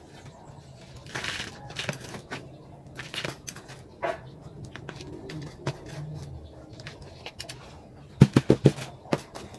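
Small hand trowel scooping and scraping potting mix into a plastic pot, in scattered short scrapes. Near the end comes a quick run of about five knocks, the loudest sound.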